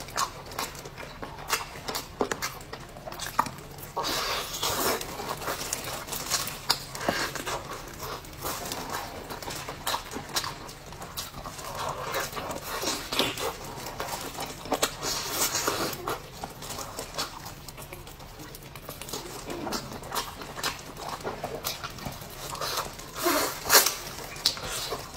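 Close-miked eating sounds: wet chewing, lip-smacking and sucking, with frequent short sharp clicks and smacks at an irregular pace.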